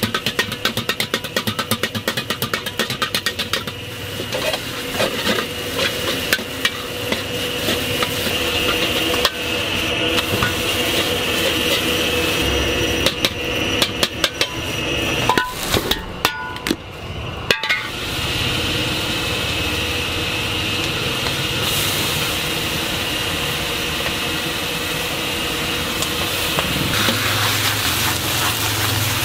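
Metal ladle and spatula clanking and scraping rapidly against a wok while stir-frying wide rice noodles, over the steady hiss of the gas wok burner and food sizzling. The strikes come fast at first, then grow sparse, and the steady hiss carries on.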